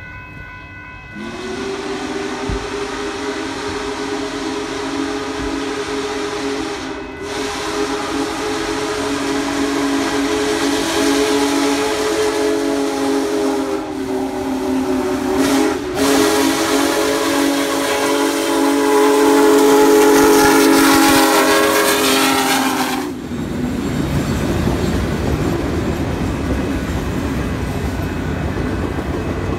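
Union Pacific 4014 "Big Boy" steam locomotive's whistle sounding several pitches at once as it approaches. It blows loud long blasts in a long, long, short, long pattern, the grade-crossing signal. About twenty seconds in the whistle stops and the locomotive and its train are heard rolling past.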